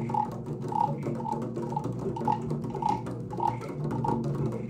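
Hand drums played together by a class of children to imitate a rainstorm: a dense patter of light taps, with a hollow tap repeating about twice a second over a low steady drone.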